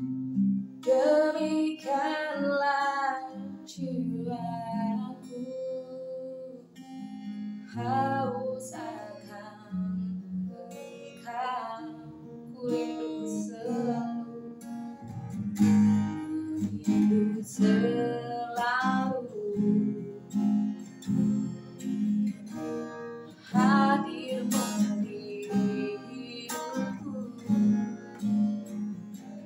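A woman singing an Indonesian worship song, accompanying herself on a strummed acoustic guitar.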